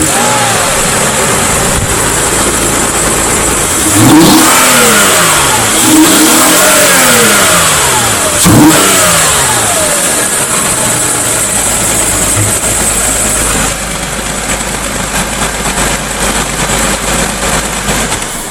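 A 2006 Mazda 6's 3.0-litre V6 breathing through a BCP cold air intake routed into the fender well runs at idle and is blipped three times. Each rev rises and falls in pitch about two seconds apart, then the engine settles back to idle. The intake makes the induction sound louder than stock.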